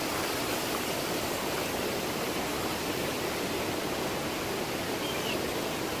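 Strong storm wind rushing steadily through the trees.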